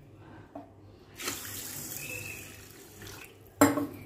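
Water being poured onto washed rice, red lentils and fenugreek seeds to soak them, a pouring hiss lasting about two seconds. Near the end a single sharp clank of a vessel.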